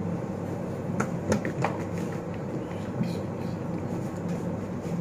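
Plastic shaker bottle of pancake mix handled: a few sharp clicks and knocks about a second in and again near three seconds, over a steady low hum.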